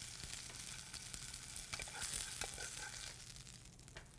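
Thinly sliced gravlax sizzling in a hot frying pan, with a few light utensil clicks as the slices are lifted out. The sizzle dies away near the end.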